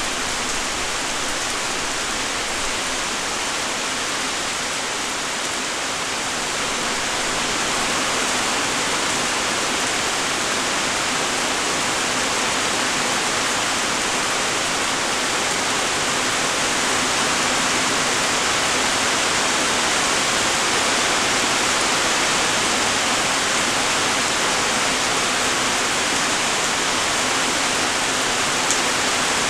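Steady light rain, an even hiss of many small raindrops falling, with one brief faint tick near the end.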